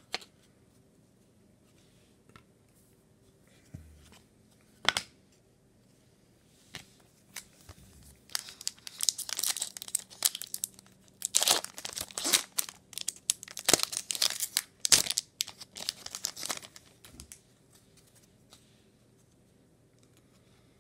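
A foil trading-card pack being torn open, its wrapper crinkling and tearing for about eight seconds in the middle, after a couple of single knocks early on.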